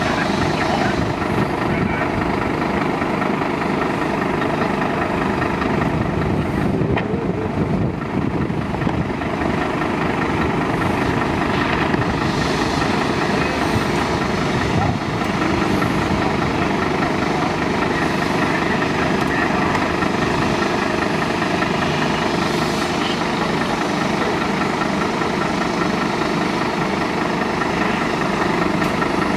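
Fire engine's diesel engine running steadily at a constant speed, driving its water pump while fed from a street hydrant.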